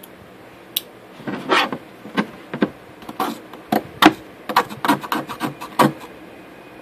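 Folding pocket-knife blade scraping at the edge of a fiberglass circuit board. About fifteen short, sharp scraping strokes, irregularly spaced, start about a second in and stop a second before the end.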